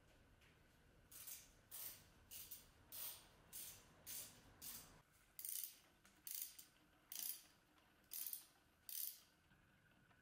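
Quiet clicking of a ratchet wrench in about a dozen short strokes, roughly one every two-thirds of a second, undoing the bolts of a crash-damaged motorcycle ignition cover.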